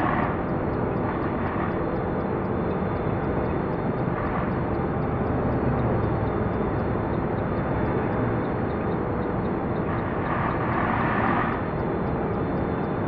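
Steady drone and rush of a vehicle travelling at road speed, with no horn sounding. A brief swell of hiss comes a little over ten seconds in.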